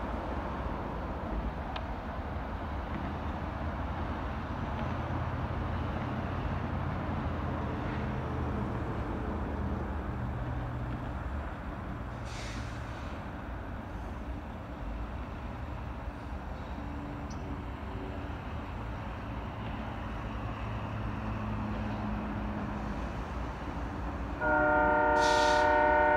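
Utah Railway GP38-3 diesel locomotive rumbling low and steady as it approaches. About two seconds before the end, its horn starts a loud, steady blast.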